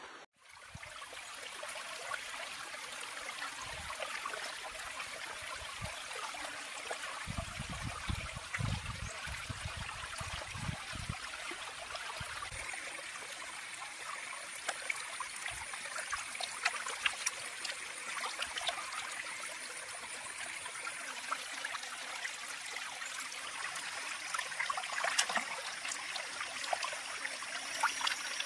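Stream water running steadily over rocks, with small splashes and dribbles from hands rinsing and rubbing a squid in the water.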